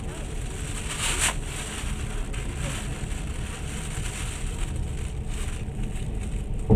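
Passenger train running, a steady low rumble and hiss of wheels on track heard from inside the carriage, with one short sharp knock near the end.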